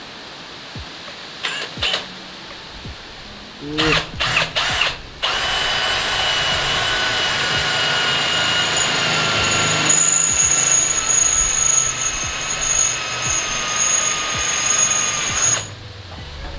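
Power drill blipped a few times, then run steadily for about ten seconds while drilling a hole. Its whine sinks slowly in pitch, and a thin high squeal joins midway before it stops suddenly.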